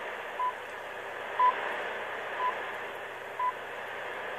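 BBC Greenwich Time Signal pips relayed on shortwave: four short beeps of one pitch, one a second, over steady shortwave hiss, counting down to the top of the hour.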